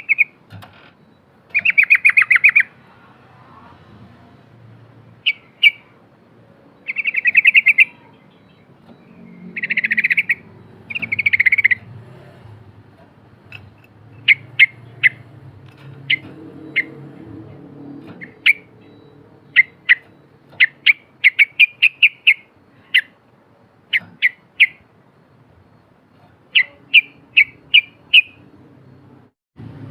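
Yellow-vented bulbul (trucukan) singing: several short buzzy trilled phrases, then a long run of quick, sharp chirps in tight clusters.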